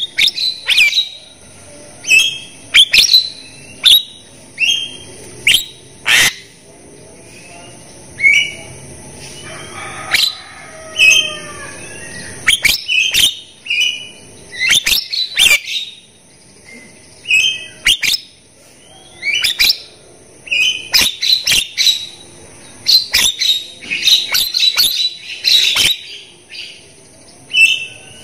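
Javan myna (jalak kebo) calling loudly: bursts of short notes mixed with sharp clicks, coming in quick clusters over and over, with a softer, lower warbling stretch about ten seconds in.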